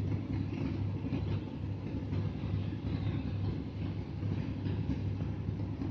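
Steady low mechanical hum that pulses about twice a second, with faint rustling and light clicks over it.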